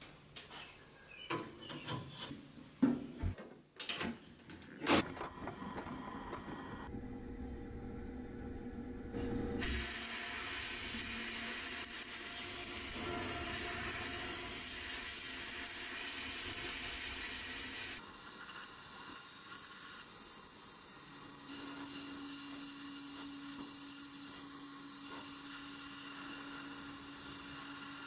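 Sandblast cabinet in use: knocks and clatter of parts being set inside, then the blast gun's steady hiss as abrasive strips the paint off a small pressed-steel toy truck part. A low steady hum joins about two-thirds of the way through.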